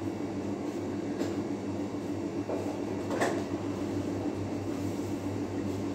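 Steady low machine hum, with a light knock about a second in and a sharper click or knock around three seconds in.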